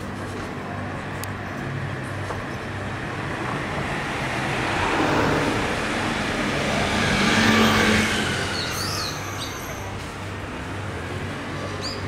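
A motorcycle passing close by: its engine noise swells over a few seconds, is loudest about seven and a half seconds in, then fades away over steady street background noise.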